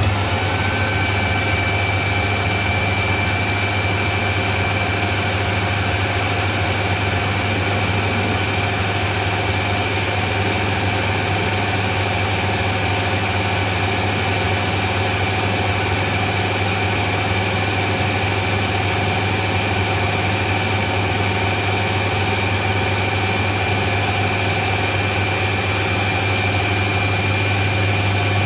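Taiwanese-built metal lathe running with its spindle turning at a steady speed: a steady hum with a high whine from the headstock drive.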